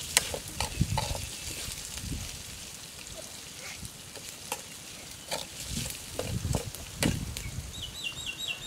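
A metal ladle scraping and clinking in a wok as eel stir-fried with ginger sizzles, with irregular sharp clicks over a steady hiss.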